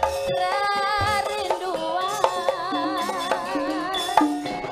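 A woman singing a Javanese song with a wavering vibrato over gamelan accompaniment, with occasional drum strokes.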